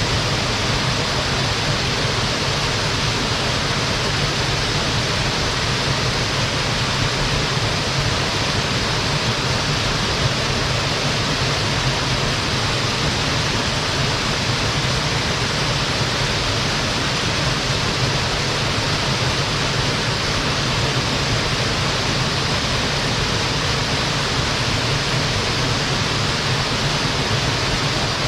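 Waterfall pouring steadily into a pool: an even, continuous rush of falling water.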